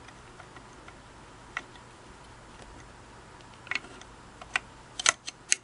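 Screwdriver tip clicking against the mounting screw and metal lamp shade of a Singer 221 Featherweight's Singerlight as the screw is turned: a single click about a second and a half in, a couple more later, then a quick run of sharp clicks near the end.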